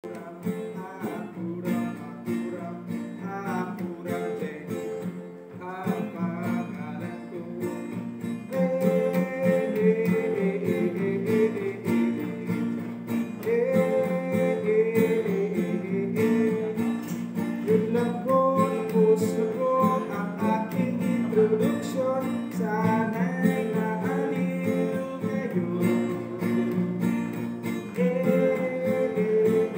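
Acoustic guitar strummed in chords while a man sings along, growing louder about eight seconds in.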